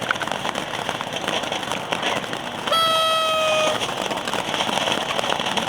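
Ground firework burning with steady crackling and hiss. About halfway through, a single high pitched tone sounds for about a second, falling slightly in pitch.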